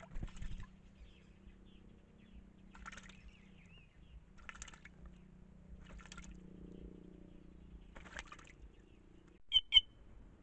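White-naped jay bathing in a shallow water basin, splashing and fluttering its wings in the water in about five short bursts a second or two apart. Near the end come two sharp, very short bird calls in quick succession, the loudest sounds.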